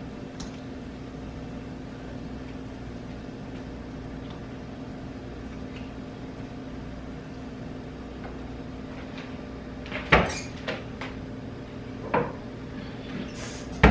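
Steady low kitchen hum, then a handful of sharp knocks and clunks from about ten seconds in, the loudest right at the end.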